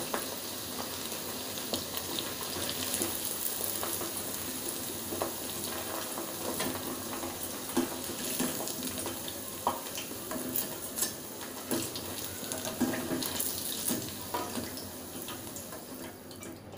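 Cornflour-battered cauliflower florets sizzling and crackling in hot deep-frying oil in a steel pan. A metal slotted spoon scrapes and clicks against the pan as the pieces are lifted out. The sizzling fades away near the end.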